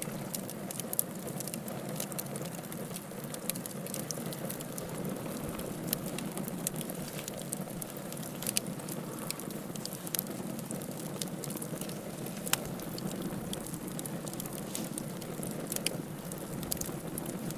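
Bonfire burning: a steady low rush of flames with wood crackling and popping in irregular sharp snaps.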